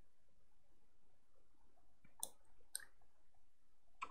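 Quiet room tone broken by three sharp computer-mouse clicks: two about half a second apart a little past two seconds in, and one more near the end.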